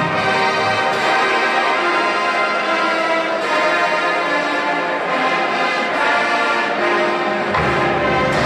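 Marching band playing, brass out front with sustained chords. The low bass parts drop out for most of the passage and come back in near the end.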